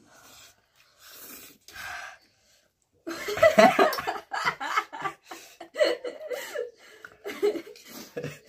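A couple of short, noisy breaths, then a man and a woman burst into loud laughter about three seconds in, laughing on in fits to the end.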